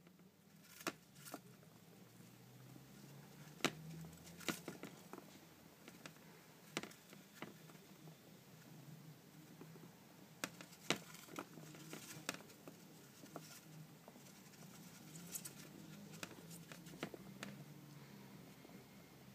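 Faint, irregular ticks and pattering of Roborovski dwarf hamsters scrabbling in a tub of bathing sand and scurrying on a hard floor, with a low steady hum underneath.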